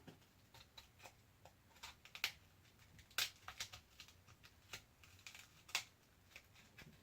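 Faint, irregular small clicks and taps of a tool working under the cracked screen of a Samsung Galaxy S5 to pry it off, a sharp click every half second or so.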